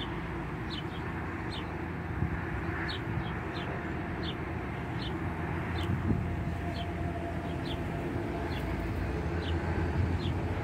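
A small bird calling over and over, a short high note that drops in pitch, repeated about once or twice a second, over a steady low outdoor rumble.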